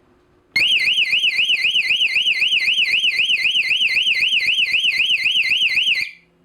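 Wired electronic alarm siren on a smart hub's alarm port, a high warbling tone rising and falling about four times a second. It starts suddenly about half a second in and cuts off near the end. It is the hub's security alarm for unwanted motion detected in security mode.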